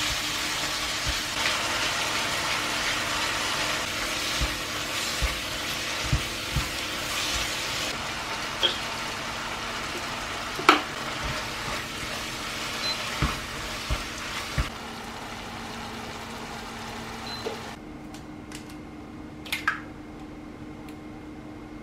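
Minced meat and diced tomato sizzling in a nonstick frying pan while a spatula stirs and scrapes it, with scattered clicks and knocks. The sizzle fades over the stretch. Near the end come a couple of sharp knocks as an egg is cracked.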